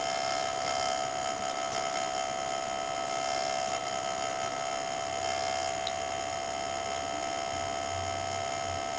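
Laptop background noise: a steady hum with several constant high tones over a low, even hiss.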